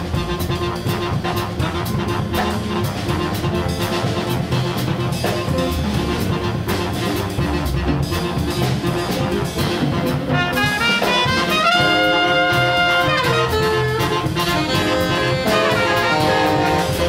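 Live jazz ensemble playing: trumpet, saxophones and trombone over double bass, guitar and drums. About ten seconds in the horns come in strongly with long held notes.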